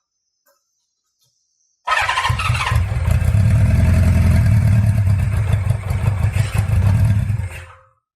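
Honda CB550F inline-four being cranked and turned over in a start attempt, starting about two seconds in and running steadily for about six seconds before cutting off. It is hard to start, with its carburettors tending to flood.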